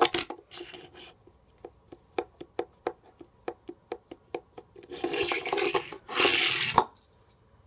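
Die-cast Hot Wheels Redline Chevy Nomad set down on a hard surface with a few clicks. A run of light, even ticks follows, about three a second. Then its wheels roll along the surface in two pushes of about a second each, the second ending in a click.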